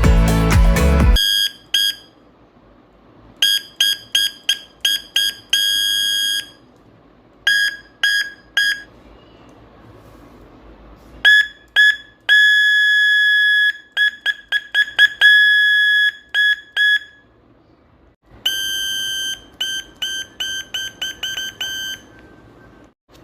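Speaker driven by a homemade LM317 oscillator circuit, sounding a steady high buzzer tone in groups of short beeps and a few longer held tones, switched on and off by a push switch.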